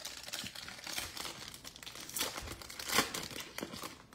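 Foil wrapper of a 2021 Chronicles football card pack crinkling and tearing as it is handled and opened by hand, with a loud crackle about three seconds in.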